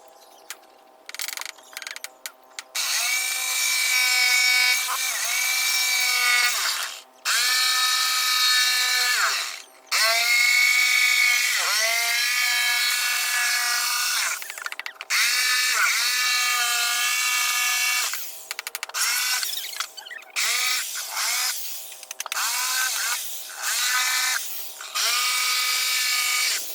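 Electric drill running in repeated bursts of about one to three seconds. Its whine rises in pitch as the motor spins up at the start of each burst, then holds steady until it stops.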